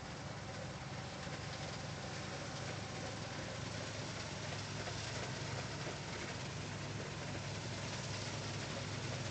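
New Holland TX36 combine harvester running steadily while threshing wheat, a distant engine and machinery hum that grows slowly louder as it comes nearer.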